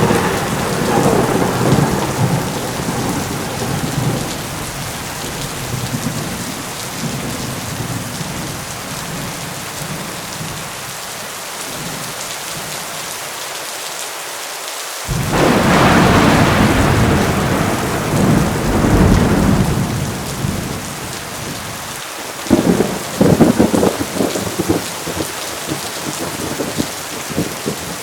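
Heavy rain pouring steadily with repeated thunder: a rumble fading over the first few seconds, a sudden loud clap about halfway through that rumbles on for several seconds, and a crackling burst of thunder near the end.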